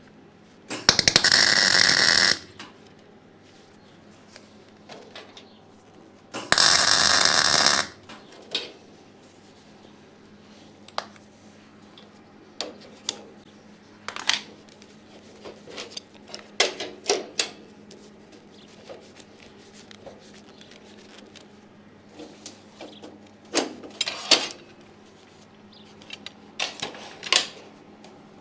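Two tack welds on the steel plates of a welding table kit, each about a second and a half of loud crackling arc, about a second and six seconds in. Then scattered metallic clicks and knocks as the parts are clamped and handled, over a faint steady hum.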